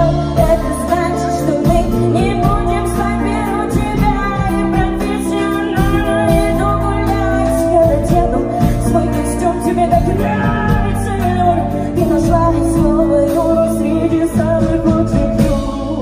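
A woman singing live into a microphone with instrumental accompaniment, holding long sustained notes.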